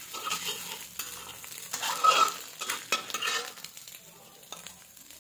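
Spatula scraping and stirring scrambled eggs in a hot oiled wok, with the eggs sizzling. The scraping strokes are irregular, the loudest about two seconds in and another around three seconds, then they grow quieter.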